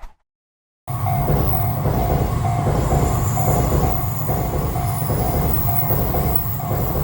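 Shonan-Shinjuku Line electric train running past a railway level crossing, loud and steady, with the crossing's warning bell clanging about twice a second over it. The sound comes in suddenly about a second in.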